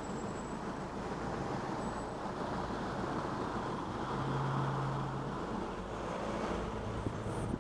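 Steady low hum of road traffic and an idling car at a standstill. About halfway through, another car passes close by, its sound swelling and then fading.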